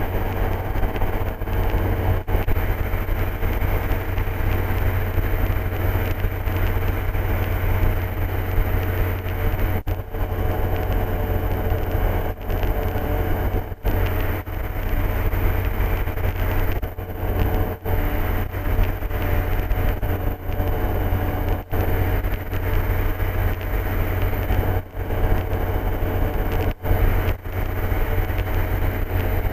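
Steady drone of an ultralight aircraft's piston engine and propeller heard from inside the cockpit in flight, with brief dips in level now and then.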